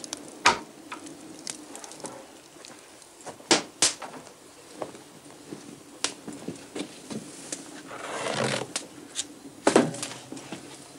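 Open log fire crackling in a stone hearth, with a few sharp knocks and a brief scrape a little before the end as the fire in the grate is tended.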